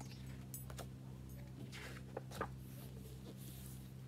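Hardcover picture book being opened and its pages turned by hand: a few soft paper rustles and light taps over a faint steady low hum.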